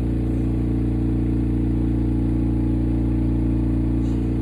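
Steady, loud machine hum: a low drone made of several steady tones that does not change.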